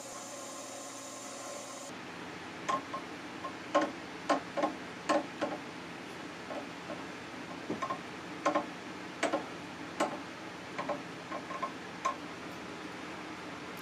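Milling machine running while drilling a metal bushing, cutting off about two seconds in. After that come irregular light metallic clicks as a tap held in the mill chuck is turned by hand into the drilled hole.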